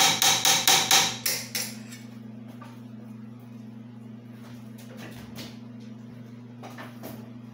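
A hammer striking metal rapidly, about four blows a second, each with a short ring, stopping about a second and a half in; a few light taps follow later. A steady low electrical hum runs underneath.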